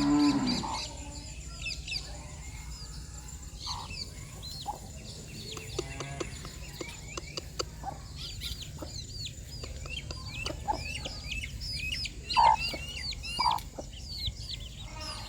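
Chicks peeping in quick, high, falling chirps, while mother hens cluck low. Two louder clucks come near the end.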